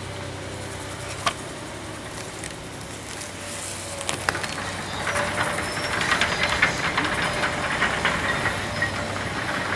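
Distant tracked excavator running steadily, with a few sharp knocks, then from about five seconds in a dense crackle of cracking and splintering wood as its bucket works into debris.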